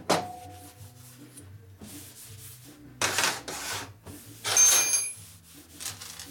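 A shop rag wiping across a steel workbench top in several separate strokes. A short knock with a brief ring comes right at the start, and a few faint metallic rings sound during one of the louder strokes.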